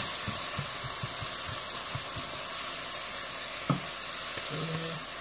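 Diced onion and yellow bell pepper sizzling in a stainless steel frying pan, with a silicone spatula knocking and scraping against the pan as it stirs, and one sharper tap about three and a half seconds in.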